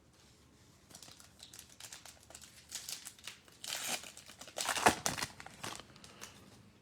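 A trading card pack's plastic wrapper being torn open and crinkled in the hands, in an irregular run of crackles that is loudest about five seconds in.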